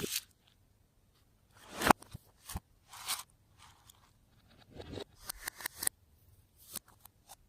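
Slime being squished and worked by hand, making irregular sticky pops and crackles with short quiet gaps between them, a loud pop a little under two seconds in and a quick run of crackles around five to six seconds.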